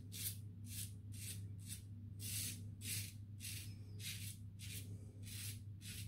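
Razorine Flatboy double-edge safety razor with a Kai blade scraping through lathered stubble on the chin and neck in short, quick strokes, each a crisp rasp, about two or three a second. A steady low hum sits underneath.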